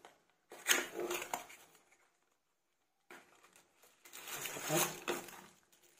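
Packaging being handled: a small cardboard box and plastic wrap rustling and crinkling, in a short stretch and then a longer one of about three seconds.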